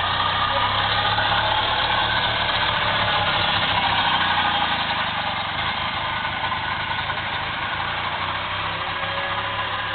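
Small golf cart engines running as golf carts drive slowly past: a steady low engine hum, a little louder in the first half and easing after about five seconds.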